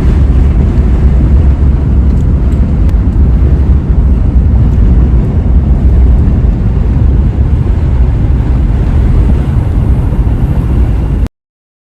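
Vehicle driving along a dirt off-road trail: a steady, loud low rumble of engine and tyres. It cuts off abruptly to silence near the end.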